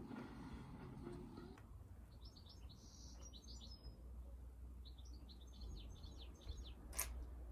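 Small songbird twittering in two short runs of quick chirps over a faint low rumble, with one sharp click near the end.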